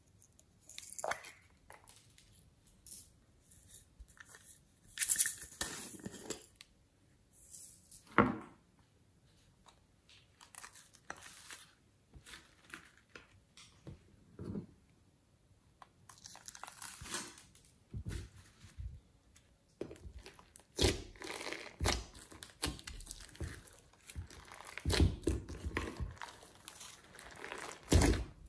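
Hands working slime and its mix-ins in a glass dish: scattered rustles and light taps, coming closer together and louder in the second half as thick white slime is pulled over the pieces.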